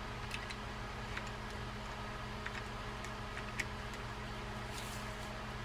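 A few faint, sparse clicks and ticks of small metal reel parts as the Shimano Calcutta 251's side plate is meshed back onto its frame, over a steady low hum.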